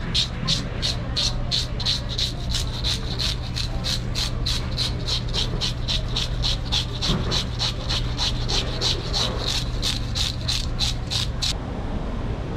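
Metal fish scaler scraping scales off the skin of a large whole fish in quick, even strokes, about three a second, each a short rasp. The scraping stops abruptly near the end, leaving a steady low hum.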